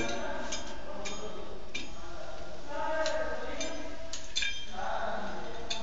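Several small, sharp metallic clicks and clinks from a chrome plumbing fitting being handled and screwed into a wall outlet, over voices in the background.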